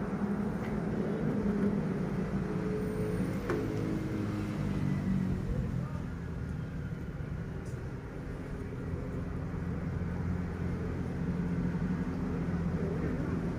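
Steady low hum of a running motor vehicle engine, with a slightly wavering pitched drone.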